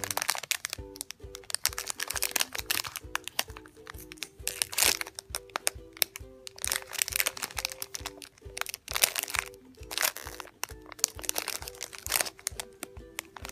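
A clear plastic bag around a squishy toy crinkling in irregular bursts as hands handle it, over background music.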